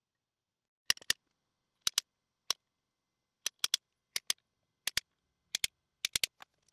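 Metal punch marking drill-hole spots along a track on a table saw fence: a series of about twenty sharp clicks, in quick pairs and threes, with silence between.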